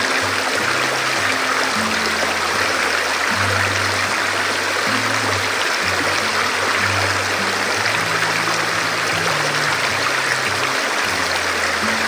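Steady rushing water, with background music of slow, held low notes that change pitch every second or so.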